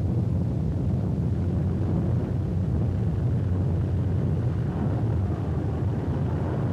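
Grumman TBF/TBM Avenger's Wright R-2600 radial engine running throttled back at idle as the plane rolls out after landing: a steady, low engine drone.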